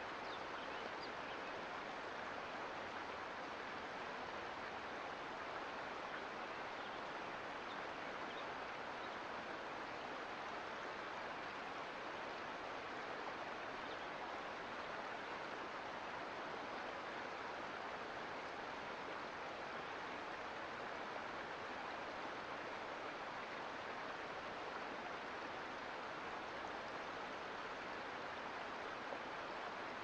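Mountain creek flowing: a steady, even rush of running water.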